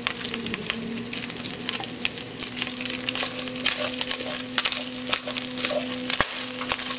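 Bacon frying in pork lard in a glazed clay cazuela, sizzling with many small crackles as a wooden spatula stirs it. A steady low hum runs underneath.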